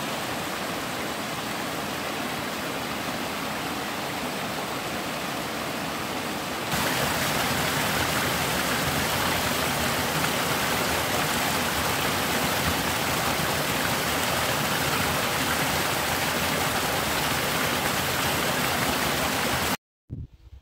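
Steady rush of a small hillside waterfall splashing over rocks into a stony burn, louder from about seven seconds in. It cuts off abruptly just before the end.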